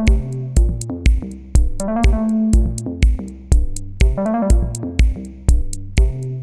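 Electronic background music: a drum-machine beat at about two kicks a second, with crisp high hits and a synthesizer melody.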